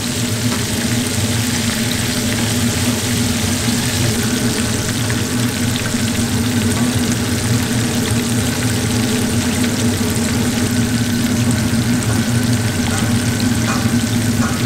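Breaded red grouper pieces deep-frying in a cast iron skillet of hot oil, a steady crackling sizzle of bubbling oil. A steady low hum runs underneath.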